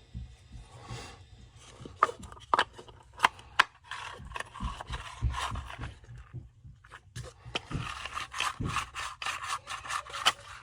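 Small parts of a Stihl cut-off saw's starter being handled and fitted by hand: a few sharp clicks and knocks, then a stretch of rapid scraping and rubbing in the second half.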